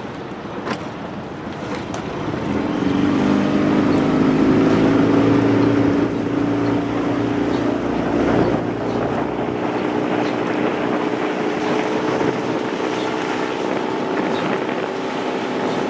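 Small outboard motor on a following boat, picking up speed over the first few seconds and then running steadily, with wind on the microphone.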